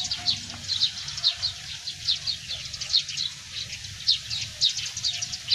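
Small birds chirping continuously: many short, high, falling chirps, several a second.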